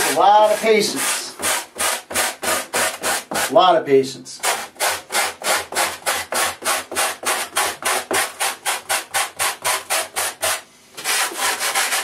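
Hand sanding: sandpaper rubbed back and forth over a carved tree relief in quick, even strokes, about four a second, smoothing off its sharp edges. The strokes stop briefly near the end.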